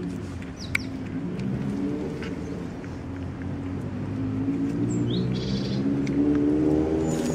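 A motor vehicle's engine running in the background, rising in pitch and getting louder toward the end. A few short bird chirps come through about five seconds in, and small clicks of cats crunching dry food.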